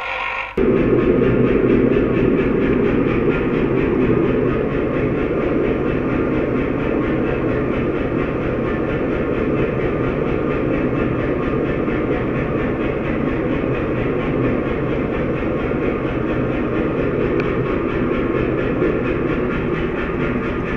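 Propane gas forge burner running with a loud, steady rushing rumble and a fast low flutter while a steel sample heats for hardening. A grinder's whine cuts off about half a second in.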